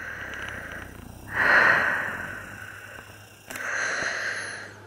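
A hiker's breathing close to the microphone: two long, breathy exhales, the first starting sharply about a second in and the second, shorter one about three and a half seconds in.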